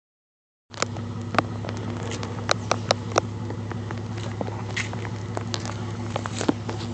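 Jeep Grand Cherokee engine idling through its exhaust: a steady low drone that starts just under a second in, with scattered sharp clicks over it.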